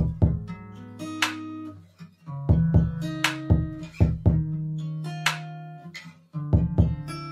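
Background music: plucked notes struck in a steady pattern over a sustained low bass line.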